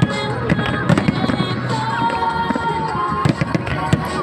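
Aerial fireworks bursting, a rapid run of sharp bangs and crackles, over a song playing from loudspeakers.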